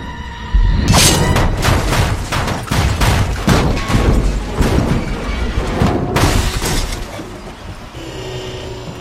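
Film action sound effects over music: a heavy low boom about half a second in, then a rapid, irregular run of bangs and shattering glass that dies down after about seven seconds.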